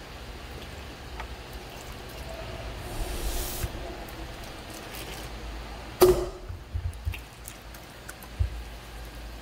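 Potter's wheel running with a steady low hum while wet clay and water are worked. There is a short hiss about three seconds in, a sharp knock with a brief ring about six seconds in, and a few softer thuds after it.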